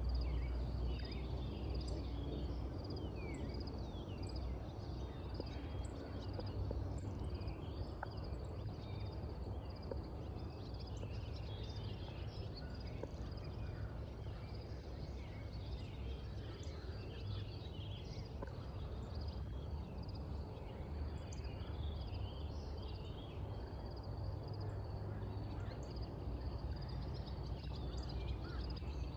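Morning birds chirping and calling, many short calls scattered throughout, over a steady low rumble and a thin high hiss.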